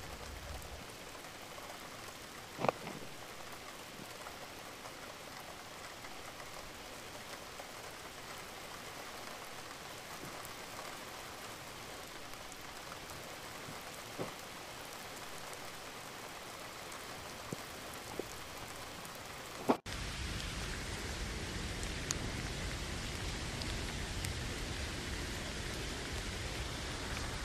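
Steady rain falling on a tent, with a few sharp knocks, the loudest a few seconds in. About twenty seconds in the sound cuts to a louder patter of rain.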